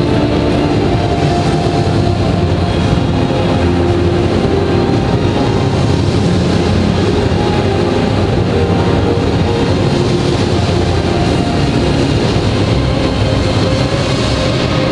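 Figure skating program music played over a rink's loudspeakers, booming and echoing in the hall, with held notes changing over a heavy rumbling low end.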